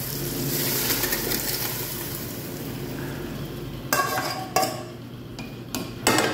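Boiled mung beans and their broth poured into a hot aluminium pot of sautéed tomato and onion, a steady hissing pour. From about four seconds in, several sharp metal clanks as the emptied pot knocks on the rim and a metal spoon starts stirring.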